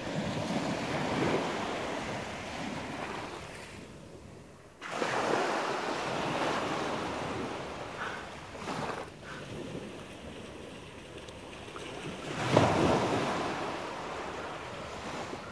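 Sea surf washing up a sandy beach, swelling and ebbing over a few seconds at a time, with the biggest surge late on. Wind buffets the microphone.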